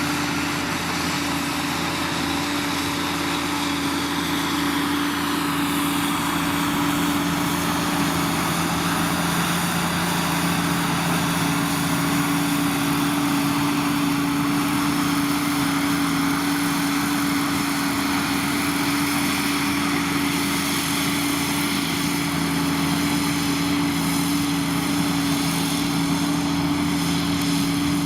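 New Holland tractor's diesel engine running steadily while pulling a plough through the field, with a constant engine tone.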